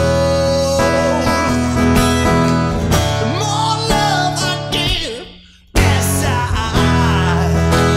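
Acoustic guitar played with a man singing wordless held and bending notes. The music falls away almost to silence about five and a half seconds in, then the guitar comes back in with a loud strum.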